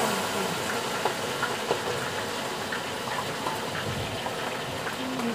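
Steady sizzle of food frying in a wok, with a few light clicks of a utensil against the pan.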